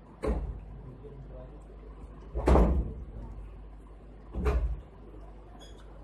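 Three dull thumps about two seconds apart, the middle one loudest.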